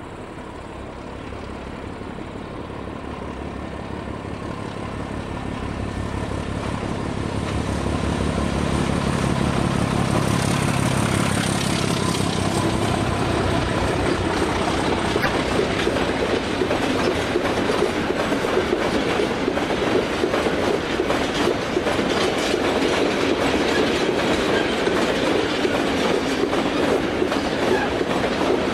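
Two Czech class 751 'Bardotka' diesel locomotives running without exhaust silencers approach and pass at the head of a freight train, their engine sound growing louder over the first eight seconds or so. A long string of covered hopper wagons then rolls by with a steady clickety-clack of wheels over the rail joints.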